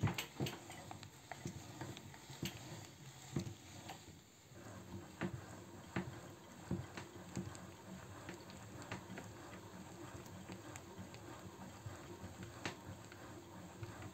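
Hand-cranked cast-iron meat grinder being turned, its screw crushing chunks of chocolate: irregular sharp cracks and clicks, heaviest in the first few seconds, then a steadier run of lighter ticks and grinding.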